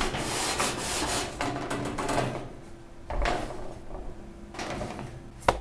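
Aluminium baking trays scraping and sliding over a metal oven rack as they are pulled out of the oven, with one sharp clank near the end.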